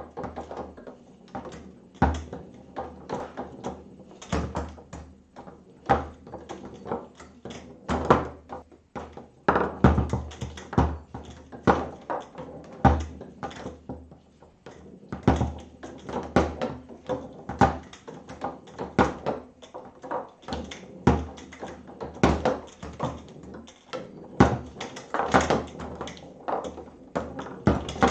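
Foosball table in play: the ball is knocked back and forth by the plastic figures on the rods, giving a fast, irregular run of sharp knocks and clacks, some much louder than others.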